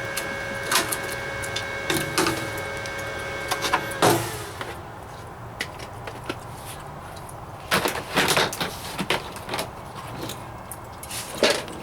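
A steady machine hum with a few light clicks stops with a knock about four seconds in. After that comes a scatter of knocks and clatter, as of tools and sheet metal being handled and set down on a workbench.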